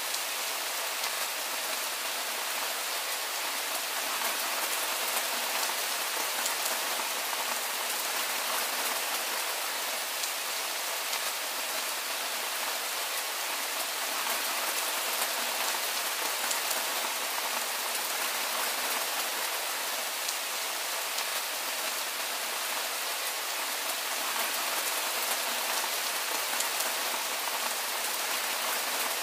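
Steady rain falling: an even hiss with a fine patter of drops, bright and without low rumble, unchanging throughout.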